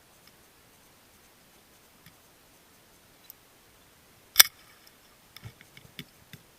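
A sharp click about four seconds in, followed by several fainter clicks and knocks.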